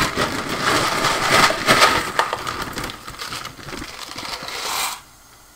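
Dry pasta rattling and the pasta bag crinkling as a cup is scooped through it, a dense clatter of small clicks. It grows quieter after about three seconds and cuts off suddenly about five seconds in.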